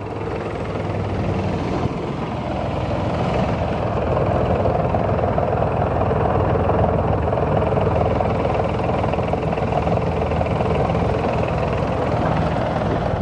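Kubota D902 three-cylinder diesel engine of a Grasshopper 722-D2 mower running steadily, growing slightly louder over the first few seconds.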